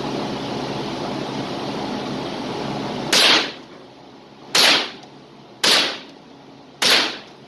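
Four shots from a Thompson/Center TCR22 .22 LR semi-automatic rifle, about one to one and a half seconds apart, each with a short echo in an indoor range. A steady rushing hiss comes before the first shot.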